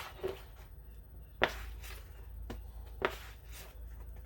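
Plastic spreader working body filler on a mixing board: a handful of sharp taps and scrapes a second or so apart, over a steady low hum.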